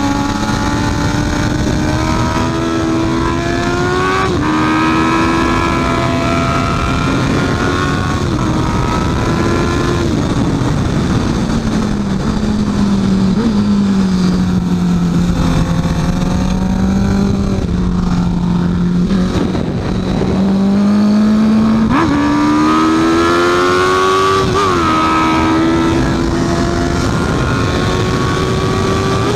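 Honda CB650F inline-four engine under hard acceleration, its revs climbing and then dropping sharply at upshifts about 4 and 10 seconds in. It settles to lower, steadier revs from about 13 to 20 seconds, then climbs hard again from about 22 seconds with another shift near 25 seconds.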